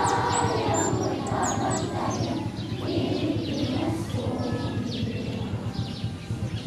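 A group of children singing together outdoors, the singing trailing off over the first few seconds. Birds chirp high above it, over a steady low rumble.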